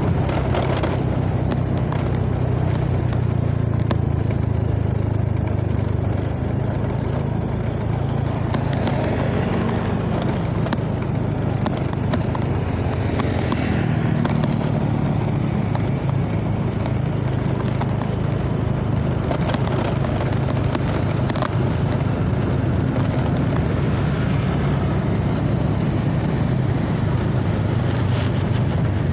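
A road vehicle's engine running steadily at cruising speed as it drives along, with a constant low hum and wind rushing over the microphone.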